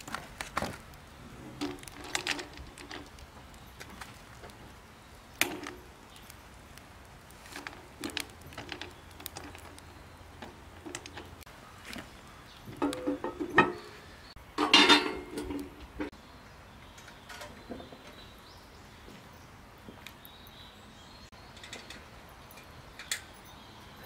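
Sweet potatoes and a potato being set onto hot pebbles in a cast-iron Dutch oven for stone-baking, with scattered knocks and clinks of stone against stone and iron. The loudest cluster of knocks comes a little past the middle.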